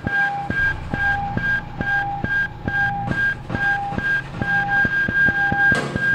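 Looped low-fi electronic music: a repeating pattern of short high beeps over evenly spaced clicks and taps, a little over two a second. Near the end a louder, fuller layer comes in on top.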